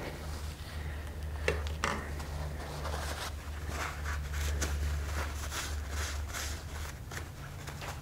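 Paper towel rubbing and rustling against a car tire's tread, wiping around a freshly inserted tire plug, in quick repeated strokes from about three seconds in, with a couple of light clicks earlier. A steady low hum runs underneath.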